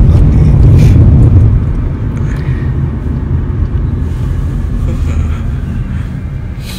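Road and engine noise heard inside the cabin of a Nissan Sentra while it is driven: a steady low rumble that drops in level about a second and a half in.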